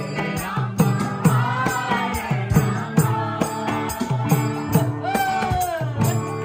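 Devotional kirtan chanting: voices sing over a steady hand-drum beat whose low strokes drop in pitch, with jingling hand cymbals.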